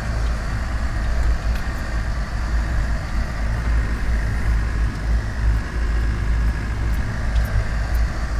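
Land Rover Defender driving slowly over a rough off-road track, heard from inside the cab: a steady low engine and drivetrain rumble with a few light rattles.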